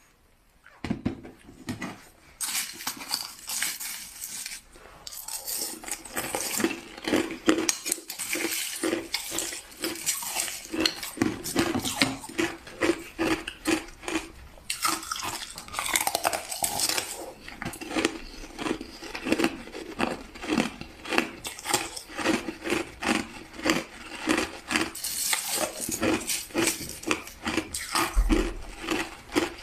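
Clear crushed ice being chewed close to the microphone: a continuous run of crisp crunches, several a second, starting about a second in.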